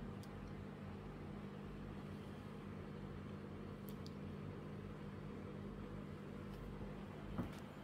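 Steady low hum of an aquarium's filter and equipment running, with a few faint clicks and a short knock near the end.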